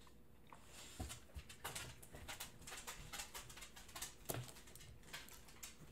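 Faint eating sounds: someone chewing a bite of Tastykake Butterscotch Krimpet snack cake, heard as many small, quick clicks and soft smacks.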